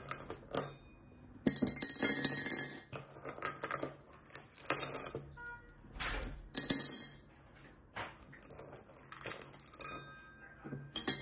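Small stones dropped by hand into a round glass jar, clinking and clattering against the glass and against each other in several separate bursts. They form the drainage layer at the bottom of a terrarium.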